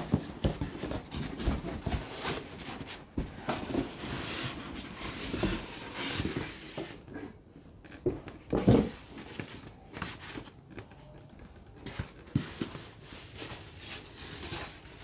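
Cardboard box and packaging being handled and opened: irregular rustling, scraping and light knocks, with one louder thump near the middle.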